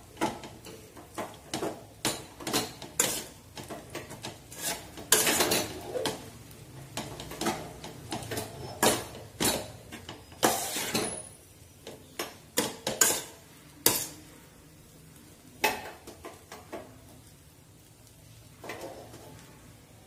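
Steel spatula scraping and clinking against a stainless steel pot while stirring flattened-rice upma, in irregular knocks and scrapes that thin out and soften over the last few seconds.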